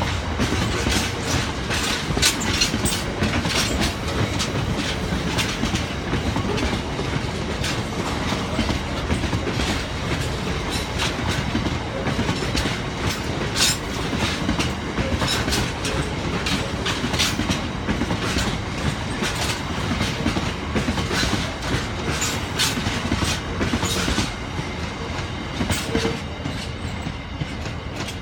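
Freight wagons of a cement train rolling past, their wheels clicking steadily over the rail joints above a continuous rumble, getting a little quieter in the last few seconds.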